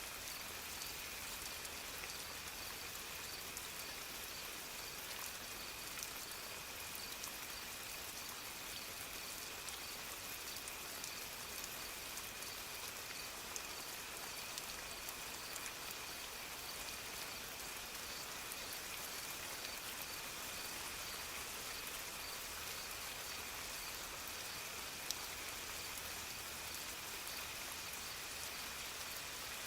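Soft rain falling steadily, with scattered drops ticking on surfaces. A faint steady high tone runs under it, with a faint pulsing tone above that.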